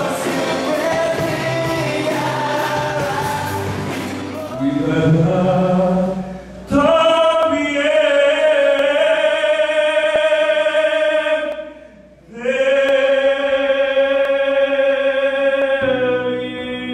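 A worship band plays with drums under a singer, then a man sings long held notes alone into a microphone, with no band behind him, pausing briefly for breath about twelve seconds in.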